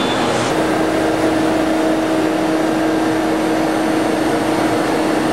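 Practical CNC Dual 2 router running under power, its 10 HP spindle and machine giving a steady, loud mechanical noise. About half a second in a steady mid-pitched whine sets in and holds.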